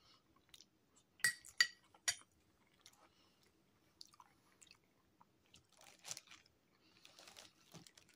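Close-miked chewing of a spoonful of macaroni salad, with three sharp wet mouth clicks in quick succession a second or two in, then softer, scattered chewing sounds.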